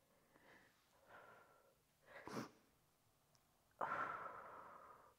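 A woman breathing quietly during a glute bridge: a short sharp breath about two seconds in, then a long exhale near the end that fades away over more than a second.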